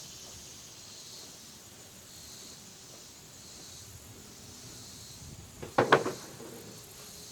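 Steady high hiss of insects buzzing, with a quick cluster of three or four knocks about six seconds in.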